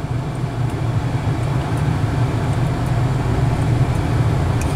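Steady low drone inside the cabin of a 1976 Cadillac Seville while driving: its V8 engine running, with road noise.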